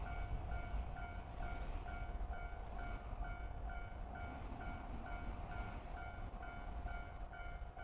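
Japanese railway level crossing's electronic warning bell ringing steadily, about two strokes a second, with a low rumble underneath.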